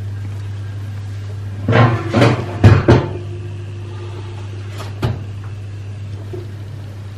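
A steady low electrical hum from a running kitchen appliance. Over it come several knocks and clatters, like doors or dishes, about two to three seconds in, and one more knock about five seconds in.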